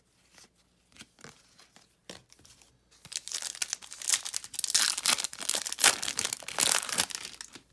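A trading-card pack's foil wrapper crinkling and tearing as it is opened: faint handling ticks at first, then from about three seconds in several seconds of loud, dense crinkling.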